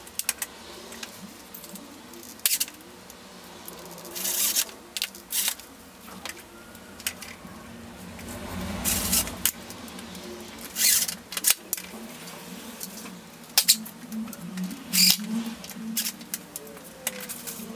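Irregular clicks, clinks and knocks of hand assembly: small metal latch clips and screws being handled and set against laminated MDF table panels, some of the clicks in quick clusters.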